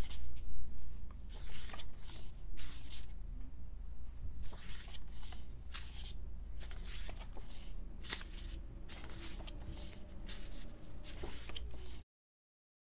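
Pages of a paper photobook being turned and handled, making a series of short rustles and flaps at an uneven pace, sometimes several a second. The sound cuts off abruptly near the end.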